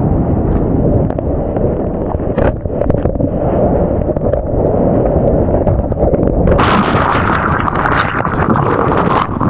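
Surf and wind buffeting the microphone in a loud, rough rumble. About six and a half seconds in, a bright hiss of spray and whitewater joins.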